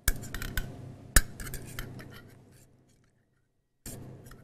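Metal ladle and serving fork clinking in a stainless steel pan of spaghetti and mussels as the pasta is lifted out: a quick run of clinks, the loudest about a second in.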